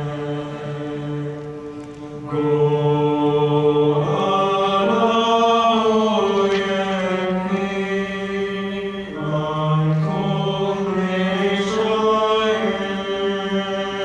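Youth choir singing slow phrases of long held notes.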